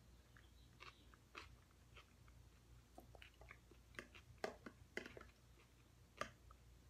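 Fork scraping and tapping inside a plastic food container while scooping out sticky pasta, a scatter of soft irregular clicks, busiest a little past the middle.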